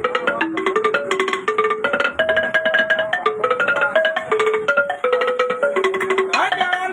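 Music: a fast, repeating melody of short struck or plucked pitched notes, several notes a second, stepping up and down.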